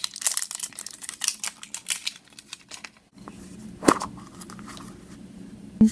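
Hard plastic acorn-shaped capsule being twisted and pried apart by hand: a run of quick plastic clicks and scrapes, then a sharp snap about four seconds in and another near the end.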